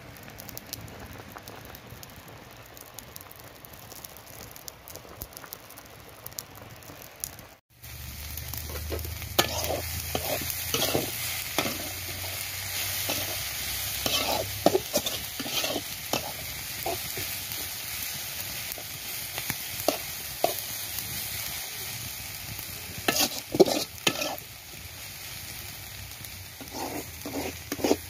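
Leafy greens stir-frying in a wok: a steady sizzle, louder after about eight seconds, with repeated scrapes and knocks of a spatula stirring against the pan.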